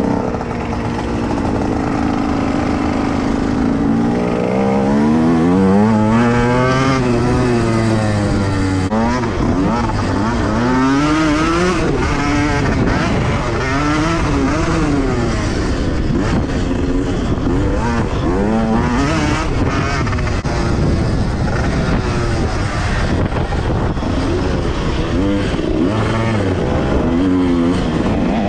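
Motocross dirt bike engine ridden hard: it runs at a steady pitch for the first few seconds, then revs up and drops back again and again, every second or two, with the throttle and gear changes.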